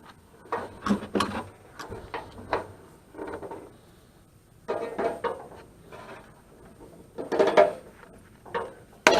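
Metal parts of a dehumidifier clattering and clinking as copper tubing is worked off the unit, in irregular bursts with a sharp click near the end.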